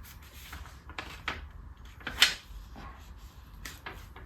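DTF transfer film being peeled back and handled, giving a few short crinkling rustles. The loudest comes a little past halfway. The design is lifting away with the film because it was peeled before it had fully cooled.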